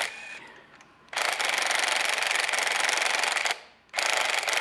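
18V cordless impact wrench hammering on a cylinder-head nut of a Toyota 2T engine, undoing it. It goes in bursts of rapid hammering: a run of about two and a half seconds, then another starting near the end.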